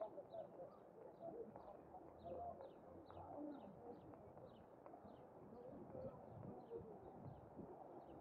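Faint birdsong: a small bird repeating a short high chirp about two to three times a second, over low cooing.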